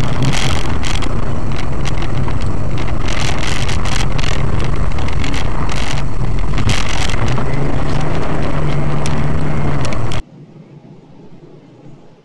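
Car engine drone and road noise heard from inside a moving car, loud and distorted, with frequent knocks and rattles. The engine note rises a little near the end, then the sound cuts off suddenly about ten seconds in.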